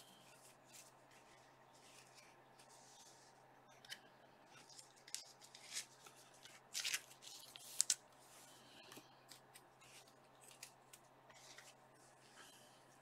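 Trading cards being handled: faint scattered rustles and clicks of cards and plastic card sleeves, loudest in a short cluster about seven to eight seconds in.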